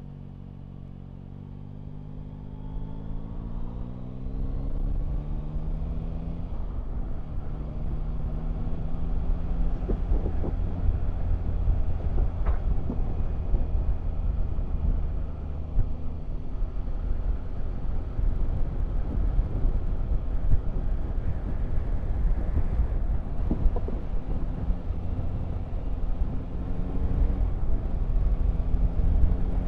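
Yamaha Tracer 9 GT's three-cylinder engine running on the move, with a low wind rumble on the microphone that builds over the first few seconds as the bike picks up speed. The engine note rises again near the end.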